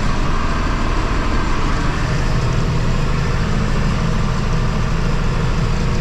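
Tractor engine running steadily as it pulls a full grain cart, a constant low drone.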